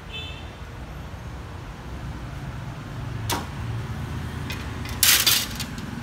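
Handling noise over a low steady rumble: a faint brief metallic ring at the start, a sharp click about three seconds in, and a louder short clatter around five seconds in.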